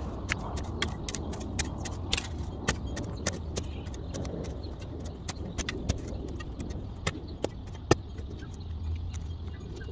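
Shovel digging around an evergreen's roots: irregular sharp clicks and knocks as the blade strikes soil and roots, the loudest about eight seconds in, over a steady low rumble.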